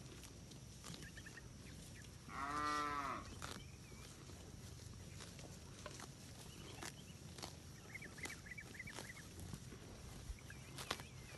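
A cow moos once: a short call of about a second, about two seconds in, rising then falling in pitch. Faint bird chirps and scattered soft clicks sit around it.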